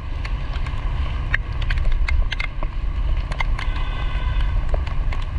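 Wind and road rumble on the microphone of a motorbike riding through heavy rain, with scattered sharp ticks of raindrops striking the camera.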